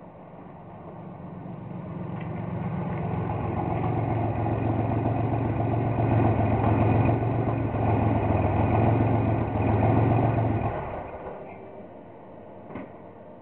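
1964 Corvair Spyder's air-cooled turbocharged flat-six exhaust, through a Thrush Welded muffler with a turn-down tip. It grows louder as the car comes close, holds a steady low note, then drops away sharply a few seconds before the end. A single click follows.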